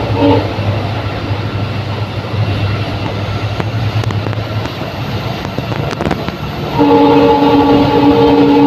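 WDG4 diesel locomotive passing at speed: its multi-tone EMD horn cuts off just after the start, leaving engine and rail noise, then the horn sounds again about seven seconds in and is held.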